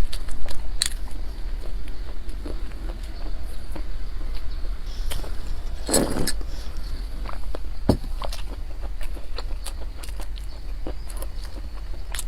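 Close-miked chewing of dense nut bread, with irregular crunchy clicks from the nuts and crust and one longer, louder crunch about six seconds in. A steady low hum runs underneath.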